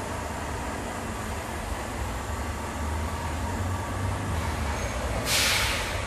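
Heavy lorry's diesel engine rumbling steadily as it drives along the street, with a short loud hiss a little after five seconds in.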